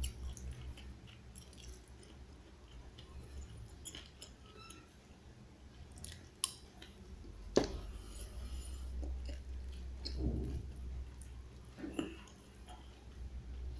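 A person chewing a mouthful of rice and side dish, soft and irregular, with a few sharp clicks of a spoon against the dish, the loudest about halfway through.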